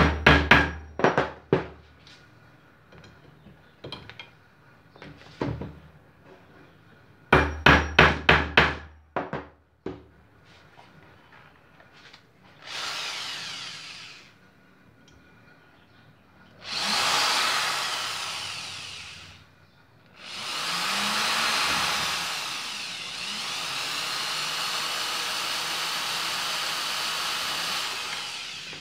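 Two quick runs of sharp knocks, about five in each, then a Bosch GSR 7-14 E corded drill/driver running in three bursts as it drives a 1/4-inch screw into wood. The last and longest burst lasts about eight seconds.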